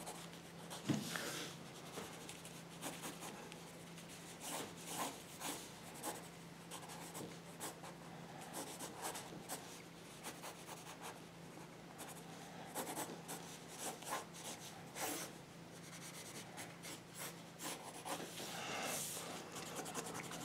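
Pencil scratching across paper in many quick, uneven sketching strokes, with short pauses between them.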